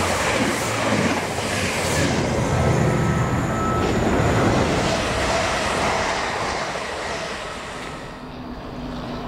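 Networker Turbo diesel multiple unit running past close by, its wheels and engines loud for several seconds, then fading away as it leaves.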